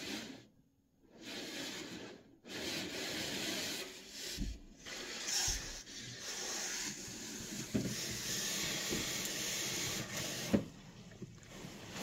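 Water sprayed onto a car's windscreen, hissing on the glass in spurts that stop and start, with a few dull knocks and one sharp knock near the end.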